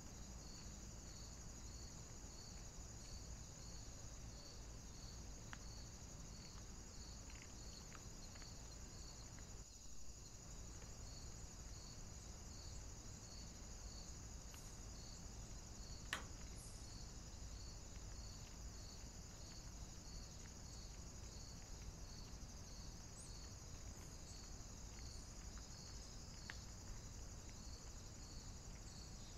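Faint, steady chirring of crickets, with evenly repeated chirps a little more than once a second, over a low hiss. A single sharp click a little past halfway, with a few fainter ticks around it.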